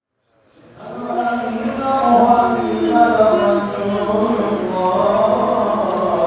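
Chanted singing fades in over the first second, then carries on as a sustained, wavering sung line.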